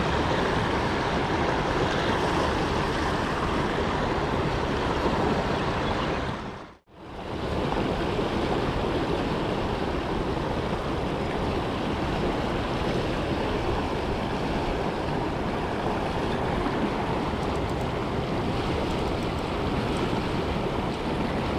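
Steady rush of river water, an even noisy wash with no tone in it; it drops out abruptly for a moment about seven seconds in and returns unchanged.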